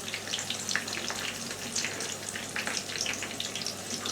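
Chicken sizzling and crackling in a hot pan as korma sauce goes in, with many small irregular pops.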